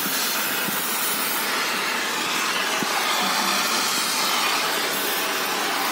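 Gas welding torch flame hissing steadily while it welds a vehicle's exhaust silencer.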